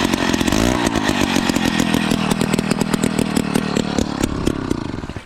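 Powered ice auger motor running steadily, drilling a hole through the ice, and cutting off near the end.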